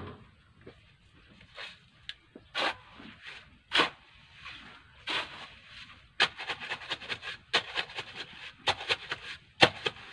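Steel shovel digging into loose, gritty soil: a few scattered scrapes and thuds, then from about six seconds in a quick run of chopping, scraping strokes as the blade is driven in again and again.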